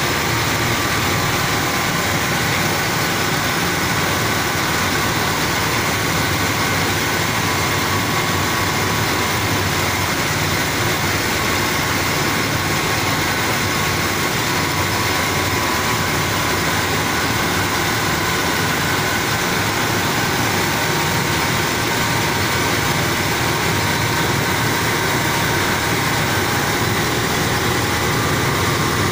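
Belt-driven rice mill running steadily while milling sun-dried paddy into rice: a constant loud machine drone with a few steady whining tones over it.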